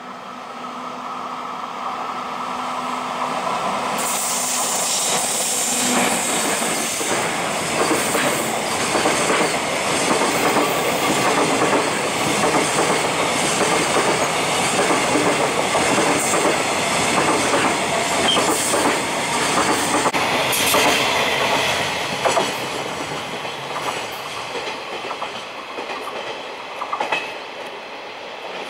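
JR Freight EF64 electric locomotive and its freight train passing. The sound builds over the first few seconds, then becomes a long, steady rush of wagons with wheels clattering over the rail joints, and eases off over the last several seconds.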